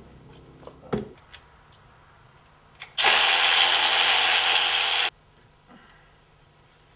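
A power tool runs in one burst of about two seconds, starting about three seconds in and cutting off suddenly. A single clack comes about a second in.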